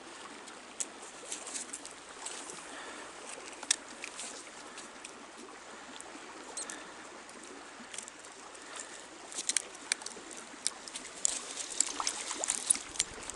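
Stream water running steadily, with scattered sharp clicks that come thicker over the last few seconds.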